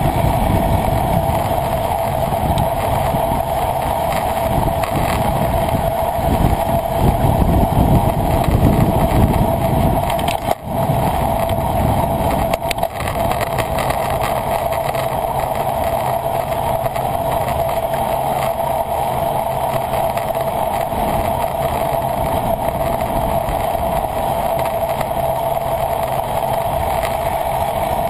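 Steady rush of wind and road noise on a camera riding along on a bicycle, with a constant hum underneath; it drops out briefly about ten seconds in.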